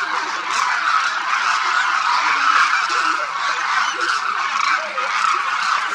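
A large flock of demoiselle cranes calling: a dense, unbroken chorus of many overlapping calls.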